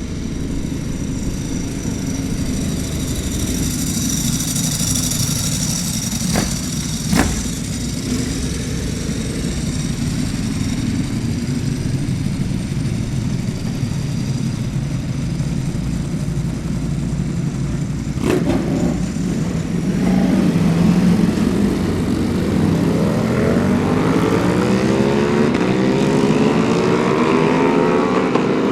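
Ducati Panigale V4 superbike engines running on track, a steady engine drone broken by three sharp cracks. From about two-thirds of the way in, an engine climbs steadily in pitch as a bike accelerates.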